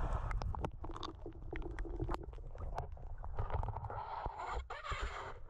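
Muffled underwater sound through an action camera's housing: a low rumble with scattered clicks and crackles of bubbles. About four seconds in it gives way to a short spell of hiss.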